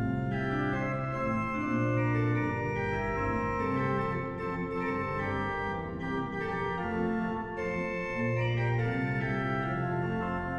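Church pipe organ playing a slow chorale-based piece, with held bass notes under full, sustained chords.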